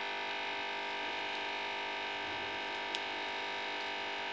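Steady electrical buzz, a mains-type hum with many overtones, running evenly under the scene, with one faint click about three seconds in. The oil being poured into the pan makes no sound that stands out above the hum.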